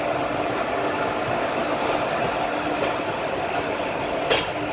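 Gitanjali Express passenger train running, heard from on board: a steady rumble of wheels on the track, with one sharp click about four seconds in.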